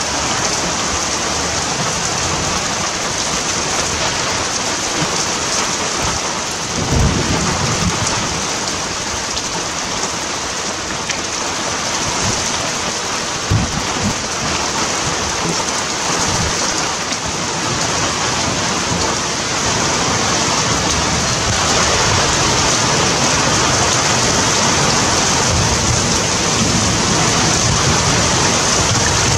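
Heavy rain pouring down steadily, with a few short low rumbles about 7 and 13 seconds in.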